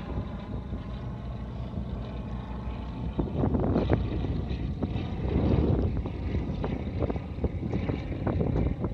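A steady low engine drone, with gusts of wind rumbling on the microphone that swell a few seconds in and again about halfway through.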